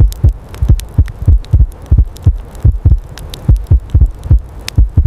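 Rapid, steady low thumps, about three a second, with faint scattered clicks above them.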